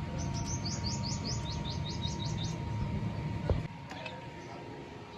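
A small bird chirping a quick run of about a dozen short high chirps in the first two and a half seconds. Under it runs a low rumble that ends with a knock about three and a half seconds in.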